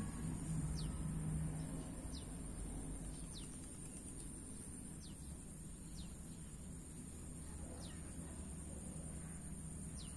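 A bird calling repeatedly outdoors: about seven short, high whistles, each falling in pitch, every second or two, over a steady high hiss. A low hum fades out about a second and a half in.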